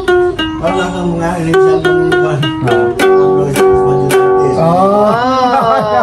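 Ukulele strummed in steady chords, the chord changing every second or so. Near the end a voice comes in over the strumming.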